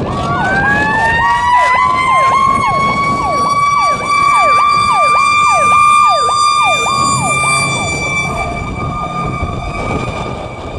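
Sirens of a 1994 Pierce Lance pumper-tanker fire engine responding to a call. One siren rises in pitch over the first second and holds a steady high wail. A second siren sweeps quickly down and back up, about two or three times a second, from about two to eight seconds in.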